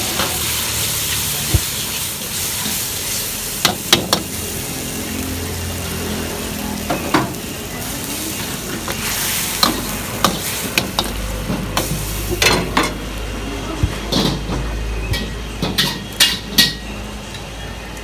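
Char koay teow stir-frying in a wok over high heat: a steady sizzle, with the metal ladle scraping and clanking against the wok every second or two. The sizzle softens in the second half while the clanks come more often.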